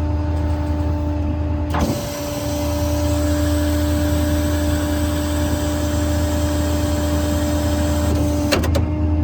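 Hydraulic crane on a Ford F550 service truck being run, with its pump driven by the truck's 6.7 Power Stroke diesel: a steady engine hum with a constant whine over it. There is a click about two seconds in, where the level dips briefly, and a couple of clicks near the end.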